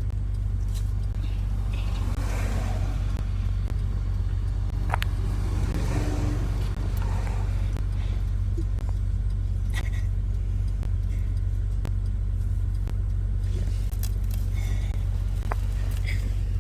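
Steady low rumble of a car's road and engine noise heard from inside the cabin, with a few faint clicks and soft voices.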